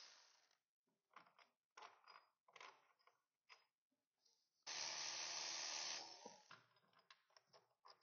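Cordless ratchet running for just over a second about halfway through, between short clinks and clatters of tools and parts being handled in a car's engine bay.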